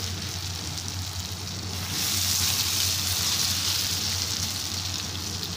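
Gram-flour-coated potato fries deep-frying in a wok of hot oil: a steady bubbling sizzle, a little louder from about two seconds in.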